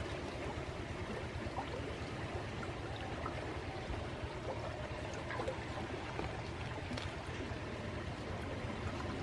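Swollen, fast-flowing muddy river rushing steadily past the bank, its current running strong after days of rain.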